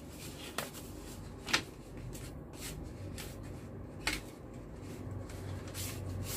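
Paper rustling and crackling as a paper lai see envelope is handled and opened to get at the banknotes inside, in scattered short crackles, the sharpest about one and a half seconds in.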